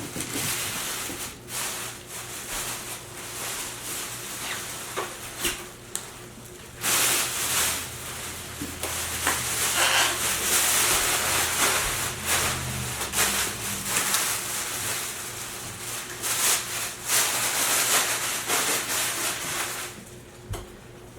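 Rustling and rubbing of packaging as a boxed powered subwoofer is handled and unwrapped, with scattered light knocks, and a low hum for several seconds in the middle.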